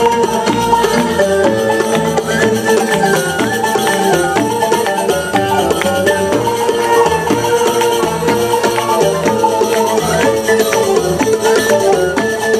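Live band playing Middle Eastern-style folk music: a tambourine-like frame drum and hand percussion keep a quick beat under a plucked oud and a woman singing.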